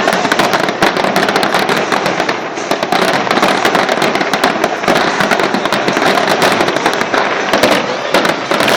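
A dense barrage of fireworks and firecrackers: many rapid bangs and crackles overlap without a pause.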